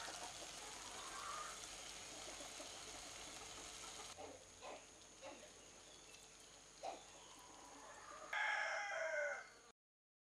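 A steady hiss with a few soft taps, then a loud animal call about a second and a half long near the end, falling in pitch as it ends. The audio cuts off just after.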